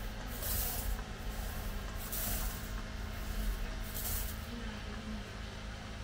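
Long-handled roller being worked over wet resin on a glass-fibre layup: three short hissing swishes about two seconds apart, over a steady low workshop hum.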